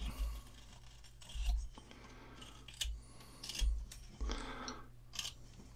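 Carving knife whittling a block of beaver wood: about six short, irregular slicing cuts as the blade shaves off chips.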